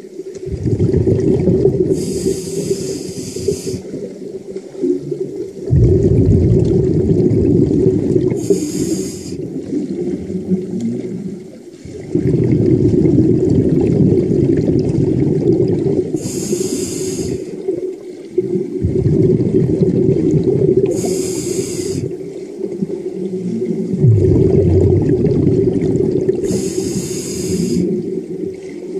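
Scuba diver breathing through a regulator, heard underwater: five inhales, each a hiss of about a second, each followed by a longer low rumble of exhaled bubbles.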